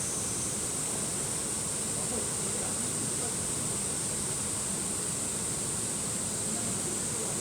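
Steady rushing of a mountain stream, with a constant high-pitched insect buzz over it.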